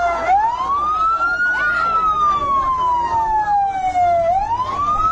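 Ambulance siren wailing loudly in a slow cycle: a quick rising sweep, then a long falling glide, then rising again near the end. Voices are faintly audible underneath.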